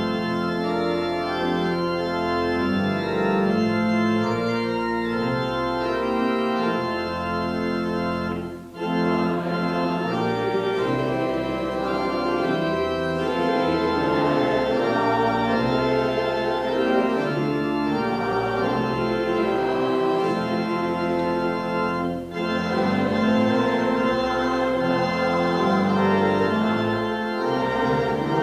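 Church organ playing sustained chords in a slow, hymn-like progression, with brief breaks between phrases about nine and twenty-two seconds in.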